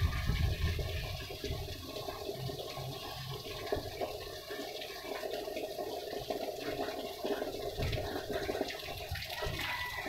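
Water running steadily, a continuous rushing noise with uneven low rumbling that is heaviest in the first second.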